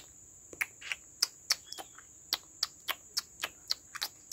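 Insect calling: a steady high-pitched whine with sharp clicks about three times a second.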